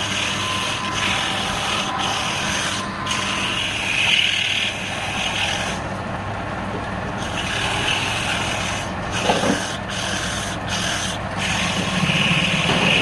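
Wood lathe running with a low motor hum while a tool or abrasive rubs against the spinning wood in a rasping scrape, the contact breaking off briefly several times.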